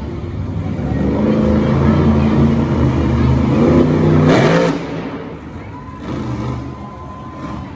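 Monster truck's supercharged V8 revving hard under heavy throttle, its pitch climbing over about four seconds, then the throttle cuts abruptly a little under five seconds in and the engine falls back to a lower, quieter running.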